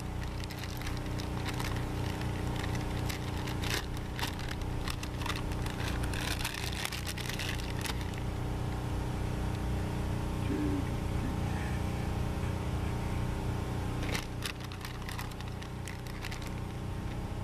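A plastic bag of shredded mozzarella crinkling and rustling as it is cut open and handled, in clusters of crackles, over a steady low mechanical hum.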